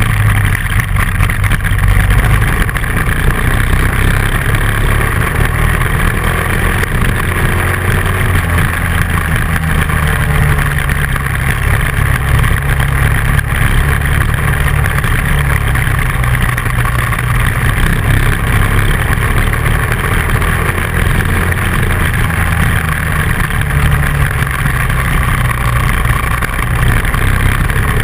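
Dual-sport motorcycle engine running steadily while riding along a dirt road, mixed with a steady low rumble of road and wind noise.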